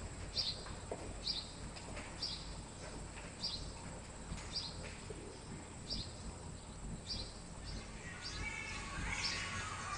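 A small bird chirping about once a second, short high notes, breaking into a longer warbling phrase near the end.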